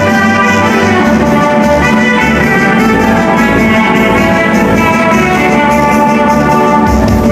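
Loud dance music with prominent brass, played over a DJ sound system's loudspeakers, with a steady heavy bass.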